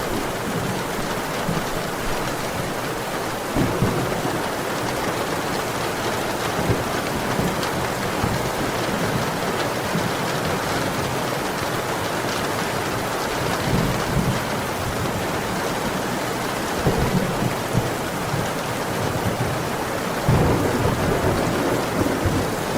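Steady heavy rain. Several low rumbles swell up through it, the longest and loudest beginning near the end.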